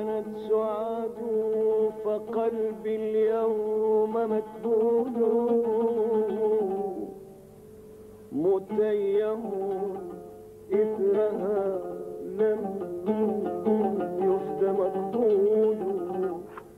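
Oud played in an Iraqi melodic style, with a wordless sung line sliding up into long, wavering held notes over the plucked strings. After a short lull about seven seconds in, the melody comes back with quicker plucked notes.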